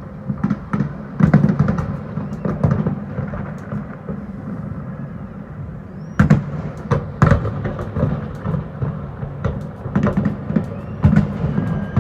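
Aerial fireworks bursting: many sharp bangs in quick clusters over a steady low rumble, busiest about a second in, around the middle, and again near the end.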